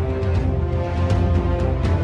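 Dramatic theme-style soundtrack music with a heavy low bass pulse, held tones and regular percussion hits.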